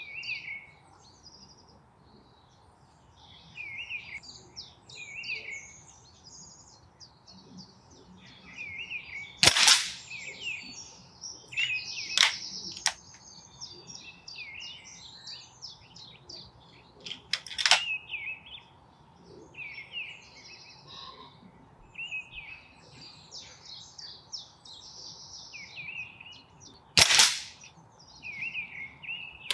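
BSA GRT Lightning XL SE gas-ram air rifle in .177 firing three shots, about eight seconds apart, each a sharp crack, with a couple of fainter clicks in between. Birds sing throughout.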